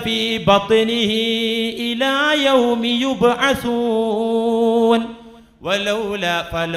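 A man's voice chanting Qur'anic recitation in Arabic, in long held notes with ornamented glides; he pauses for breath about five seconds in, then resumes.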